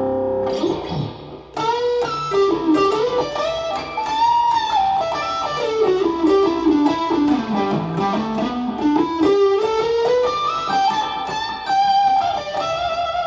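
Electric guitar through an amp simulator on a crunch, medium-gain tone, playing a fast single-note lead run. A chord rings out and breaks off about a second in; then quick notes fall in pitch, climb back up, and settle onto held notes near the end.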